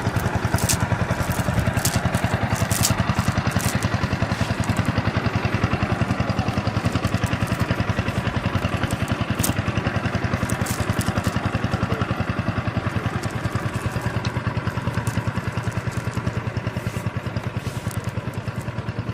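A small engine running steadily with a fast, even chugging beat, easing a little quieter near the end, with scattered light clicks.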